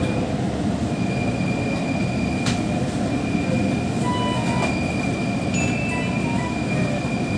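KRL Commuter Line electric train running slowly into a station: a steady low rumble with a thin high-pitched whine, a sharp click about two and a half seconds in, and a few short squeals in the second half.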